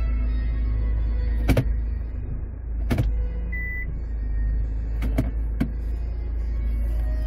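A few sharp clicks and one short electronic beep from a car's dashboard touchscreen navigation unit as it is pressed and switches screens, over a low steady cabin hum and faint radio music.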